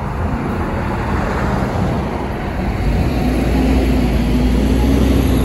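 Motor vehicle running with road noise, a low rumble that grows louder about three seconds in.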